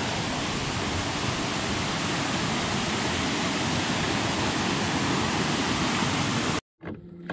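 A clear forest creek cascading over rocks in a small waterfall: a steady rush of water that cuts off suddenly near the end, leaving a faint low hum.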